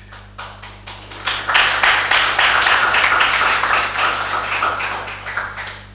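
Audience applauding: a few scattered claps that swell about a second in into full applause, then taper off near the end.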